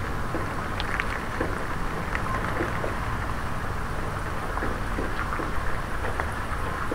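Rain falling on a puddle: scattered drops tick against a steady hiss of rain, over a steady low rumble.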